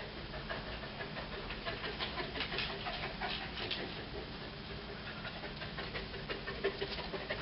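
Dog panting and sniffing in quick, irregular breaths while it searches for a scent hide.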